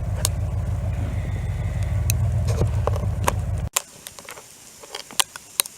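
A vehicle engine runs with a steady low rumble, then cuts off abruptly about two-thirds of the way through. Scattered sharp ticks of freezing rain and sleet hitting surfaces follow.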